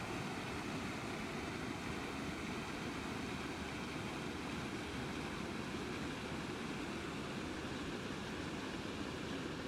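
Steady road noise of a moving car, tyres and engine making an even rush without breaks.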